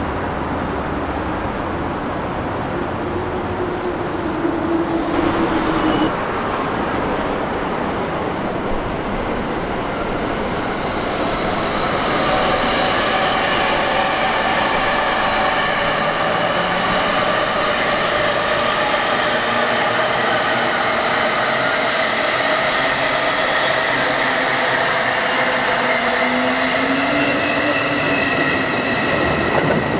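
Electric commuter trains running along the track: a steady rail rumble, with a whine that rises and falls a few seconds in. From about twelve seconds in, several held whining tones ring over the wheel noise.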